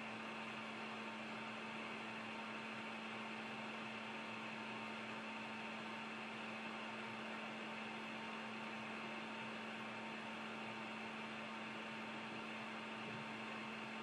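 Hot air rework station blowing steadily, a constant rush of air over a steady motor hum, as it reflows the solder paste on a freshly reballed chip at 380 °C and 40% airflow.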